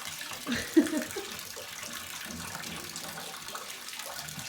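Water running steadily from a water cooler's valve into a pet bowl, with a brief sharp sound just under a second in.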